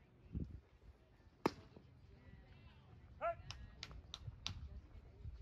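A pitched baseball smacks into the catcher's mitt with one sharp pop. A couple of seconds later comes a short shouted call, then four quick sharp claps.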